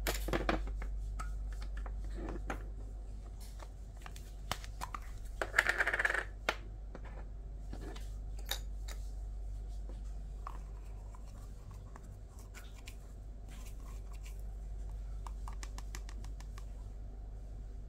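Small clicks, taps and light knocks of vaporizer parts and a plastic herb container being handled on a tabletop, with a brief scratchy scrape about six seconds in. Quieter scraping and ticking follow as ground herb is scooped out with a small spatula, over a steady low hum.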